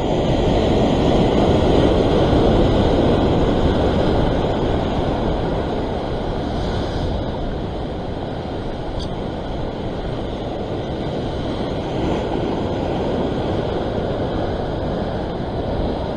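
Wind buffeting the microphone over the steady wash of surf breaking on sea rocks, a continuous rushing noise that is loudest in the first few seconds and then eases a little.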